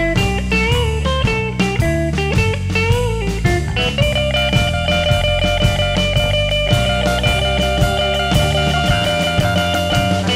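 Blues band playing an instrumental break: an electric guitar solo with bent notes over bass and drums. About four seconds in, a long note is held nearly to the end.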